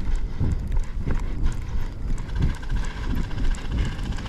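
Running footsteps of an airsoft player across grass and gravel, thudding irregularly. A fast, light ticking rattle joins about halfway through.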